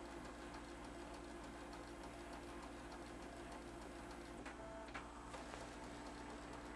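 Canon i560 inkjet printer working quietly as it prepares a nozzle check: a steady hum with faint regular ticking, about four to five a second, and a few small clicks midway.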